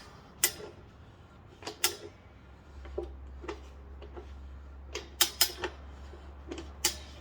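Irregular sharp metallic clicks and knocks of tire-mounting tools and a holding clamp against a motorcycle wheel rim and a manual tire changer, some in quick pairs. A faint low hum comes in about three seconds in.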